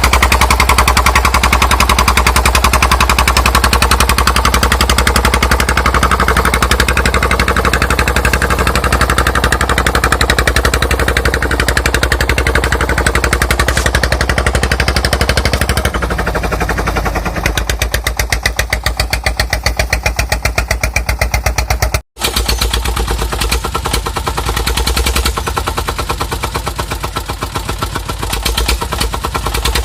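Single-cylinder Dong Feng diesel engine of a homemade truck running under load, its exhaust firing in a rapid, even chatter. The note changes about halfway through, and the sound cuts out for an instant a little past two-thirds through.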